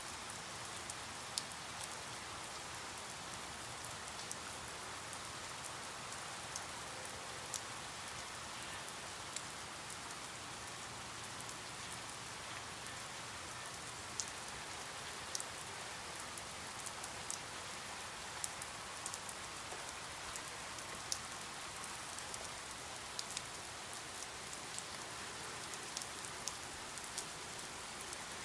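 Steady rain falling, an even hiss with many sharp drips and patters of individual drops landing on a surface scattered throughout.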